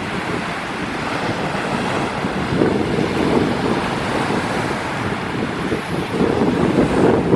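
Strong wind buffeting the microphone in gusts, with surf washing on the shore underneath.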